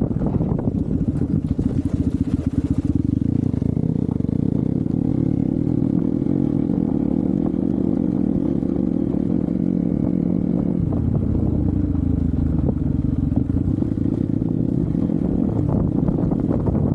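Hero Xpulse 200 single-cylinder motorcycle engine running steadily, its pitch shifting a little about eleven seconds in.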